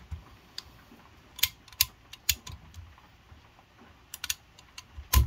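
Irregular sharp metallic clicks and clinks from a valve spring compressor, spring retainer and valve keepers being worked on a V8 cylinder head, with a heavier knock about five seconds in.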